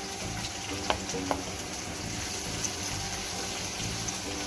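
Sliced onions sizzling in hot oil in a wok as they are scraped in from a plate, with two sharp clicks of the spatula against the plate or pan about a second in.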